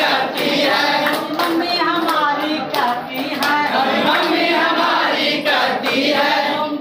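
A group of people singing a Hindi action song together, with hand claps throughout.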